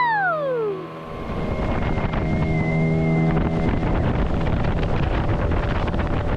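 Outboard motor of a small aluminium tinny running under way, with wind buffeting the microphone. In the first second a voice's long falling 'woo' cheer trails off.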